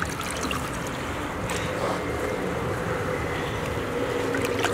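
Steady rushing noise of wind on the microphone outdoors, with a few faint clicks.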